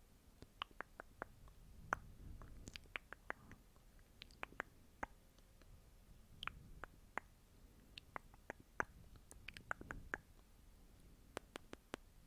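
Faint, irregular sharp clicks, a few each second, with no speech.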